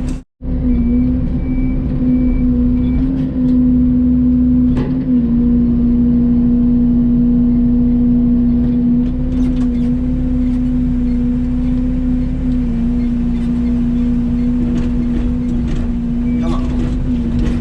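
Mini excavator's diesel engine running at a steady pitch under work, with a few short knocks and clatters now and then as it loads material.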